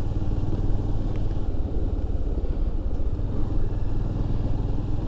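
Motorcycle engine running steadily at low speed on a dirt trail, a constant low rumble with no revving.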